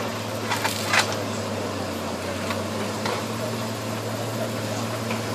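A steady low mechanical hum, with a few sharp clicks about half a second to a second in.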